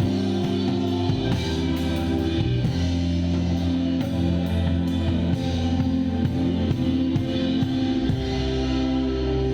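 Live band playing a worship song, drum kit to the fore with regular cymbal and drum strikes over sustained bass, keys and guitar chords, heard as an unmixed raw recording. The chord shifts about eight seconds in.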